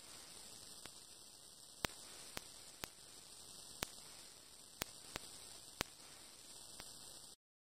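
Faint steady hiss and hum of an old recording between songs, broken by several sharp, irregularly spaced clicks, then cutting off suddenly to dead silence near the end.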